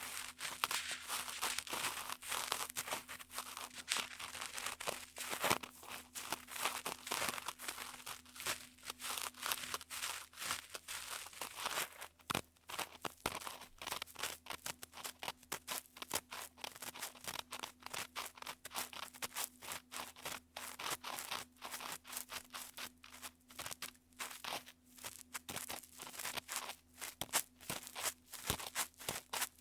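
Ear-cleaning sounds on a 3Dio binaural microphone's silicone ear: a tool scratching and rubbing close up, making dense, irregular crackling and scraping, with a faint steady hum underneath.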